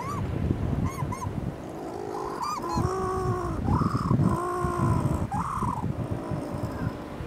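Little penguin (Eudyptula minor) calls: a few short rising chirps in the first second or so, then a run of longer, pitched braying calls through the middle few seconds, over a low rumble of wind on the microphone.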